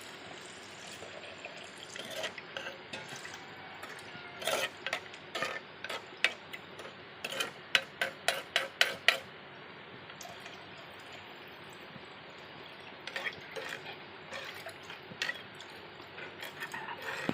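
Water being stirred into chilli-powder masala in a cooking pan: a spoon clinks and scrapes against the pan in quick runs about four seconds in and again about thirteen seconds in, over a steady low hiss.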